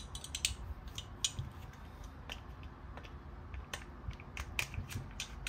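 Glock pistol parts being handled, a scatter of light clicks and clacks, about nine spread unevenly: the slide and barrel being fitted to the frame without the recoil spring guide rod.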